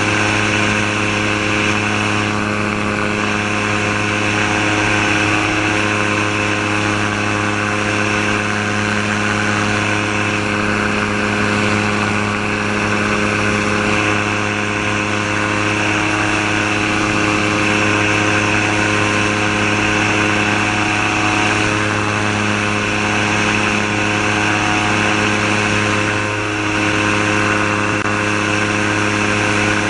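Subaru EA-81 flat-four engine of a gyrocopter, driving a Warp Drive pusher propeller through an NSI reduction gearbox, running steadily at climb power. Its pitch holds even throughout, with a brief dip in level near the end.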